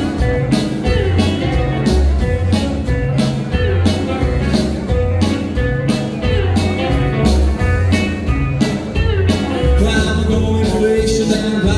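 Live rockabilly band playing with a steady beat: upright bass, drums and guitars.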